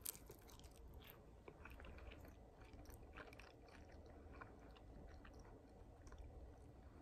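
Faint chewing of a mouthful of food, with scattered small clicks from the mouth.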